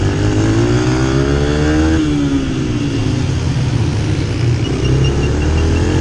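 Dirt bike engine running under riding load. Its pitch climbs for about two seconds, drops suddenly, sinks away, then rises again near the end.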